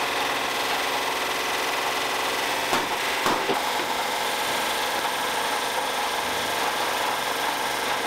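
Indesit washing machine running, a steady mechanical hum with its drum turning, with two sharp knocks about three seconds in.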